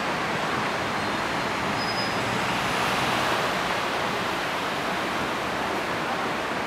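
Steady rushing roar of distant city traffic, swelling slightly about three seconds in.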